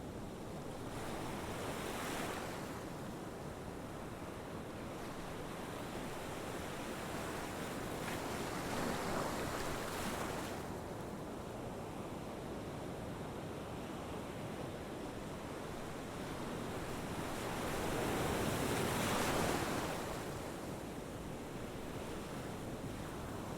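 A steady rushing noise with no distinct events, swelling and fading about three times, like surf on a shore.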